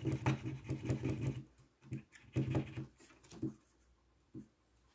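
Paint pen being primed: its nib pumped against a surface, a quick run of clicking taps for about a second and a half, then a few scattered taps as the paint starts to come through.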